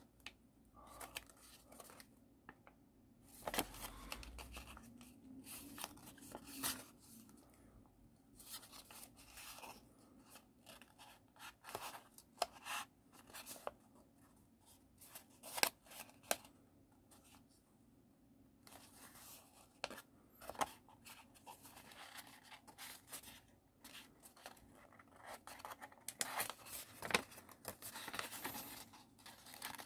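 A sheet of origami paper being folded and pressed by hand along its creases: irregular rustles and short sharp crackles of the paper, with brief pauses between.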